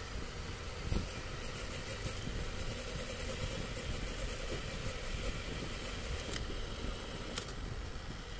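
Cylinder boring machine running steadily, its rotating boring head cutting out a cylinder bore of an engine block to take a sleeve, with a faint rapid ticking in the middle. A low thump about a second in and two sharp clicks near the end.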